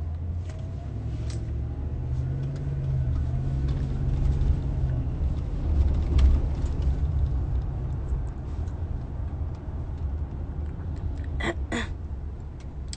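Steady low rumble of a car in motion, with a faint engine note that rises and falls slightly a couple of seconds in.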